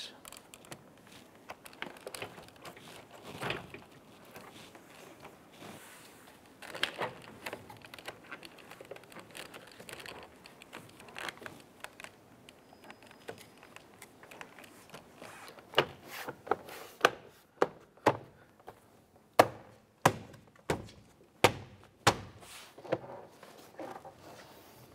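Car door trim panel being pressed onto the door, with faint handling rustle at first. In the second half come about ten sharp snaps and thunks as its plastic retaining clips are pushed home and the panel seats.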